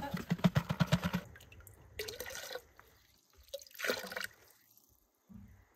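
A fast run of knocks as dry lime plaster powder is shaken out of a plastic tub into a plastic bucket, followed by two short pours of water from a plastic measuring jug into a bucket.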